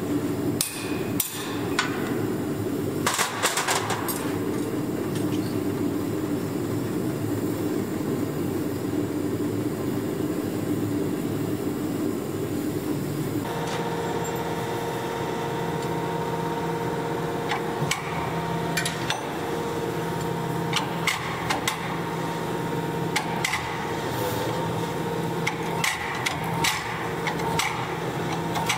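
A few sharp hammer strikes on a tool held in red-hot steel on an anvil, over a steady background noise. From about halfway a forging machine's steady hum takes over, with scattered metallic clinks and knocks of tongs and hot steel against the dies.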